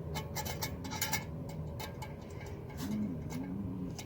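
Small clicks and taps from camping gear being handled: a quick cluster in the first second or so, then a few scattered clicks.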